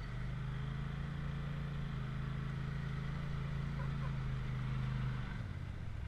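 Turbocharged side-by-side UTV engine held at steady raised revs as the machine crawls up a sandstone rock ledge, easing off about five seconds in.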